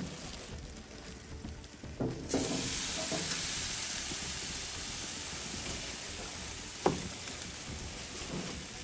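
Jerk chicken pieces sizzling on a hot grill, the sizzle starting abruptly about two seconds in and holding steady, with one sharp knock a few seconds later.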